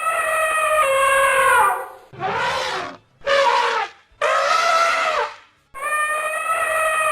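Elephant trumpeting: five calls in a row, each about one to two seconds long with short gaps between them, the longer ones falling in pitch as they end.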